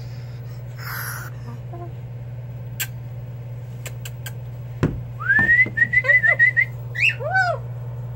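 Cockatoo whistling: a rising whistle about five seconds in, then a quick run of short chirping whistles and two arching calls. Before it come a few sharp clicks and a thump, over a steady low hum.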